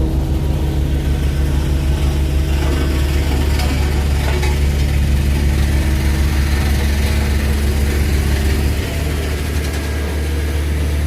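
A heavy machine's engine running steadily at a low, even note, with some faint mechanical clatter; the engine note shifts and drops slightly about nine seconds in.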